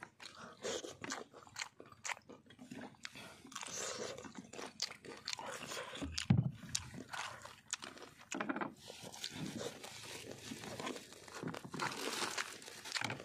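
People eating freshly cooked river shrimp and fish, with irregular crunching and chewing throughout. One sharp knock about six seconds in.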